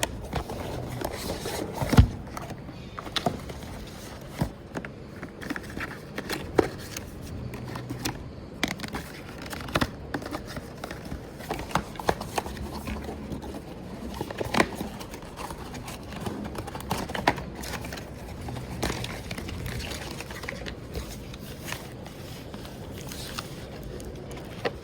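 Handling noise of a power bank being turned over in the hands: scattered clicks, light knocks, scraping and crinkling, with one louder knock about two seconds in.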